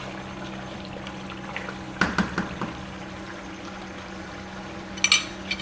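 Mutton karahi sizzling and bubbling in a nonstick wok on full flame while the meat and masala are fried down, with a wooden spatula scraping the pan about two seconds in and a sharp clatter near the end.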